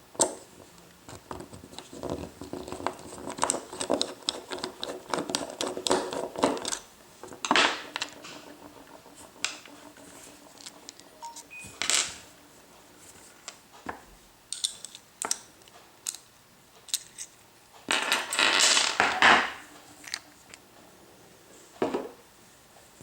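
Screwdriver and small metal parts of an American 1100 series padlock clicking, clinking and scraping as the lock is taken apart by hand, dense at first and then scattered. A louder rustling scrape about three-quarters of the way through.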